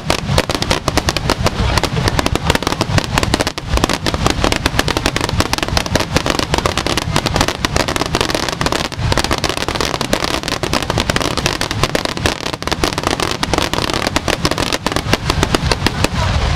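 A dense fireworks barrage: many shells and crackling stars going off at once, an unbroken rapid crackle of pops and bangs with no pause.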